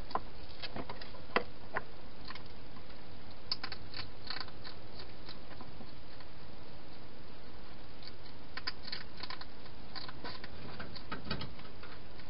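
Hedgehog eating at a feeding bowl: bursts of small crunching, smacking clicks with short pauses between them, over a steady hiss.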